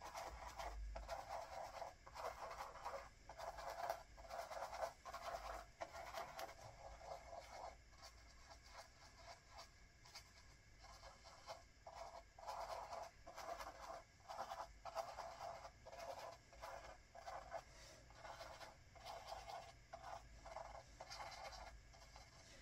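Thin line brush stroking and dabbing acrylic paint onto a stretched canvas: faint, short scratchy strokes in quick clusters, with brief pauses between runs.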